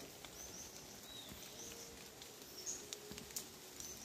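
Faint birdsong: short, high chirps repeating about once a second, with one lower curved note about a second in, and a few soft clicks.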